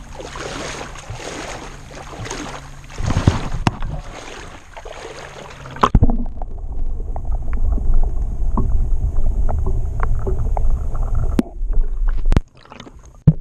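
Shallow river water splashing and sloshing around a camera held at the surface. About six seconds in the camera goes under, and the sound turns to a muffled underwater rumble with small clicks, which breaks off a little before the end.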